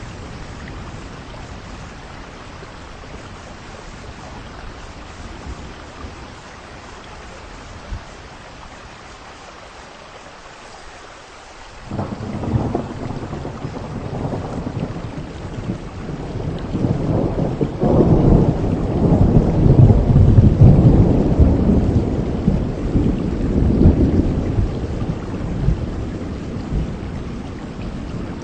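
Heavy rain falling steadily. About twelve seconds in, thunder breaks suddenly and rolls on in a long deep rumble, loudest past the middle before slowly fading.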